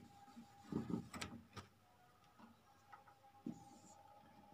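Quiet marker-pen handling on a white writing board: two sharp clicks about a second in, a few soft knocks, and a short scratchy stroke of the marker a little before the end, over a faint steady whine.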